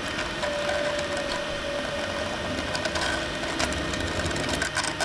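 A 3D printer running with a steady mechanical whirr, with a thin whine from about half a second in to about two seconds. Scattered crackling clicks come as flexible 70A filament mesh swatches are peeled off its print bed.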